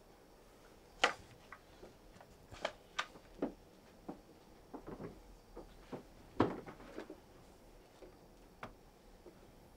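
Scattered soft knocks and clicks of a person moving about a quiet bedroom, getting up and sitting down at a desk and handling things on it. The sounds come irregularly, and the loudest knock falls about six and a half seconds in.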